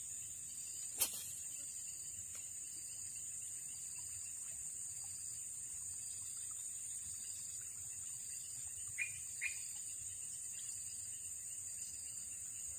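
Steady high-pitched drone of insects in swamp vegetation, with one sharp click about a second in and two short chirps near the end.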